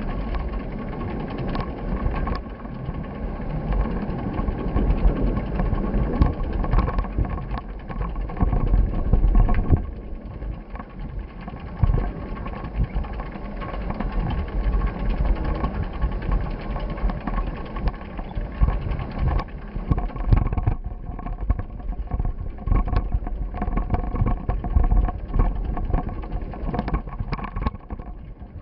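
Ride noise from an action camera in motion: wind rumbling on the microphone, with frequent small knocks and rattles and a faint steady whine.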